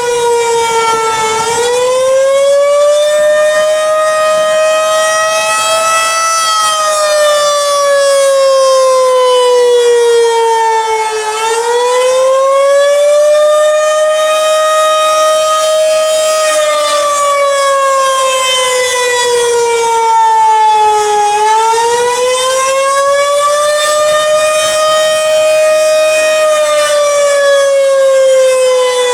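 Federal Signal 2001-130 outdoor warning siren sounding its attack signal on a test: a single wailing tone that slowly rises, holds briefly and falls again, in waves about ten seconds apart.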